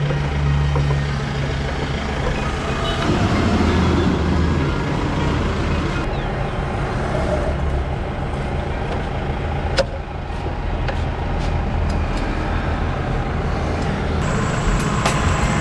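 A motor vehicle's engine running steadily, with one sharp knock about ten seconds in and a few light clicks near the end.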